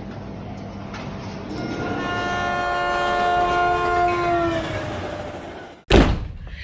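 Train horn sounding one long steady chord over the rumble of a passing train, dipping slightly in pitch as it fades. A short loud thump near the end.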